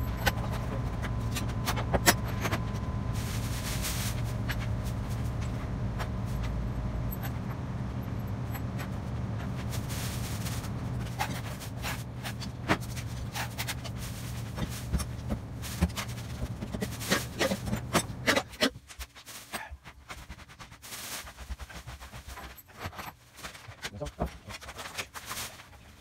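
Small objects being handled and set down on a wooden workbench, a scatter of clicks, taps and scrapes, over a steady low hum that cuts off about eighteen seconds in.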